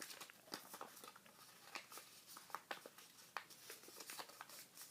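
Sheet of paper being fan-folded and creased by hand: faint, scattered crinkles and small sharp ticks as the folds are pressed.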